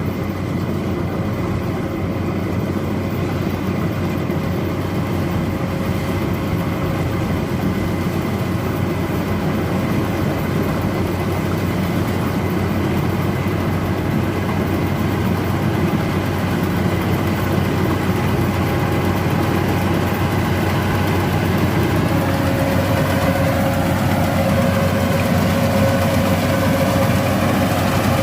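Yanmar AW82V combine harvester's diesel engine running steadily, with a steady whine that grows stronger about three-quarters of the way through.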